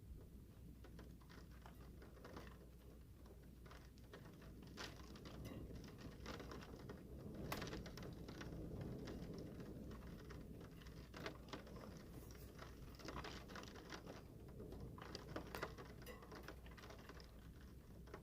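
Faint, irregular patter of raindrops, scattered ticks coming thicker around the middle, over a low steady rumble.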